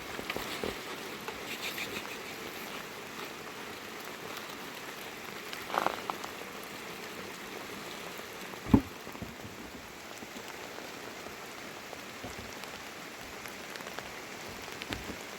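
Steady rain falling, an even patter throughout. A single sharp knock stands out a little past the middle.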